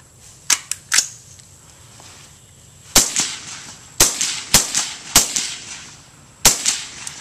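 Shots from a suppressed 5.56 mm carbine, fired one at a time at an uneven pace: five shots from about three seconds in. Two sharper, thinner cracks come about a second in, before the first of them.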